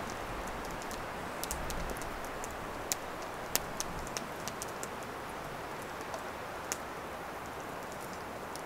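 Kitchen knife cutting small potatoes on a split-wood board, with several sharp taps as the blade goes through and meets the wood, over a steady hiss of rain on the tent canvas.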